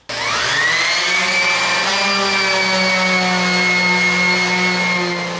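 Electric random orbital sander starting up, its whine rising in pitch over about the first second, then running steadily as it sands the edges of a stack of drawer parts clamped together.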